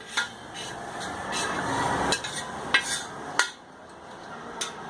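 A spatula stirring and scraping dry-roasted grated coconut in a pan, a rustling scrape that builds for the first two seconds, with several short clinks of utensil against pan.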